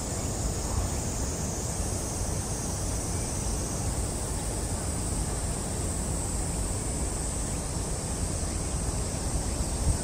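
Wind buffeting the microphone outdoors: an uneven, steady rumbling noise, with a faint steady high hiss above it.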